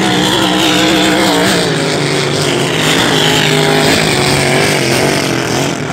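Racing hydroplane's engine running flat out as the boat passes across the lake, a loud, steady engine note with a high whine that falls in pitch as it goes by.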